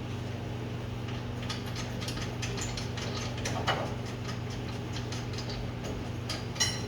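Ratchet wrench clicking in short runs as it works the spring compressor's hardware, with two louder metal knocks near the middle and end, over a steady low hum.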